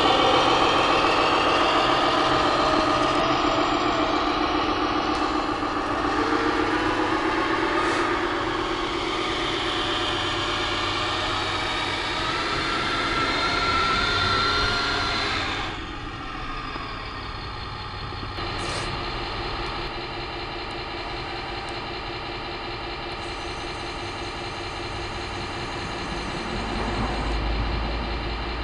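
Engine sound of a radio-controlled model Peterbilt semi truck, its note shifting in pitch in the first half. About halfway through it changes abruptly and settles to a steadier idle, with a low rumble near the end.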